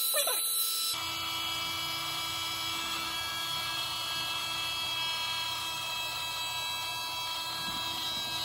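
Small electric air pump switching on about a second in and running steadily, a whine over a low hum, as it inflates a vinyl air sofa mattress.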